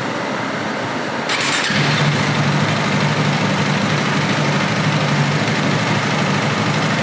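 KTM Duke 250's single-cylinder engine is cranked and starts about a second in, then idles steadily. The bike is being checked for an intermittent no-start blamed on a faulty fuel pump.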